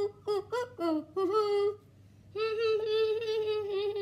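A boy humming a tune without words: a quick run of short notes, then after a brief pause about two seconds in, one long held note.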